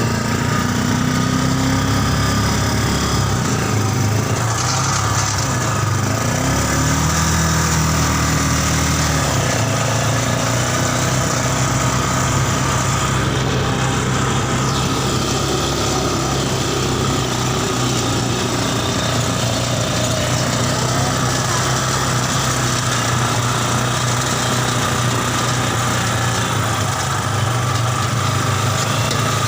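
Mini buggy's Yamaha Scorpio Z single-cylinder four-stroke motorcycle engine running steadily, its pitch shifting a few times in the first ten seconds.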